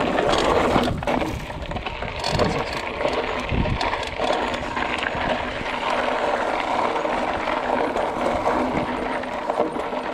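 Tyres of a Trek Fuel EX 5 29er mountain bike rolling and crunching over loose gravel, a continuous rough noise with scattered clicks and rattles from the bike.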